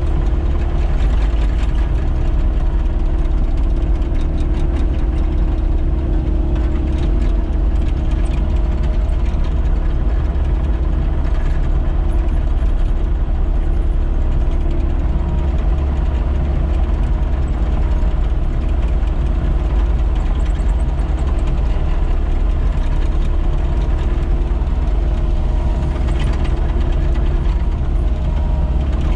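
Caterpillar 308E excavator's diesel engine running steadily with a constant drone while the machine travels on its tracks.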